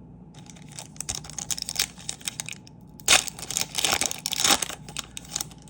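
Foil booster-pack wrapper crinkling and being torn open, a dense crackle of rustles that gets loudest about three seconds in.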